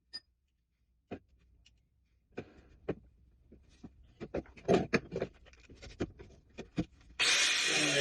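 Scattered light clicks and knocks of metal parts being handled on a workbench, right after a power tool stops. Loud guitar music comes in near the end.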